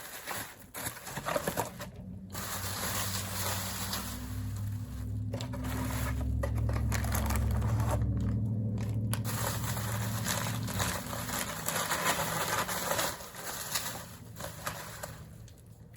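Plastic packaging crinkling and rustling as it is handled, with a few brief pauses. A low steady hum swells up a couple of seconds in and fades out after about eleven seconds.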